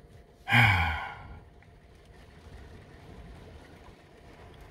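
Steady rain on the van, broken about half a second in by a short, loud, low-pitched vocal sound from a man that starts abruptly and fades within a second.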